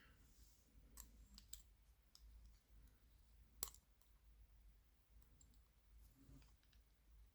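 A handful of faint, sharp metallic clicks as a small brass circlip is worked off a lock cylinder, the sharpest click a little past halfway.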